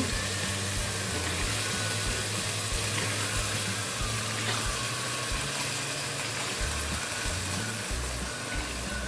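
Soaked chana dal sizzling steadily in hot masala in an aluminium pressure-cooker pot, under background music.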